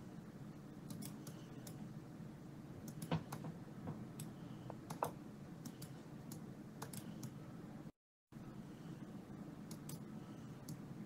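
Scattered sharp clicks of a computer mouse, a few louder than the rest, over a low steady hum. The sound cuts out completely for a moment about eight seconds in.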